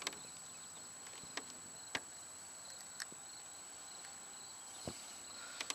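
Faint steady high-pitched insect drone. About half a dozen short sharp clicks and taps are scattered through it as fishing rod, line and lure are handled close by.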